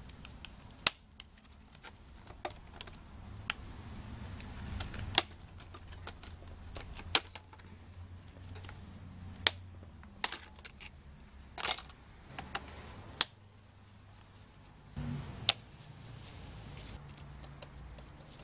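Irregular sharp clicks and clinks, about a dozen, of a hand tool and hands working the orange plastic cover and bolts of a Nissan Leaf battery module. A low rumble runs underneath.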